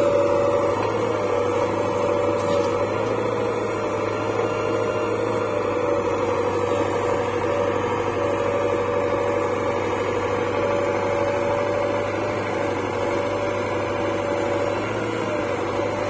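JCB 3DX backhoe loader's diesel engine running steadily under load with a steady whine as the backhoe arm digs and swings a bucket of soil over a tractor trolley.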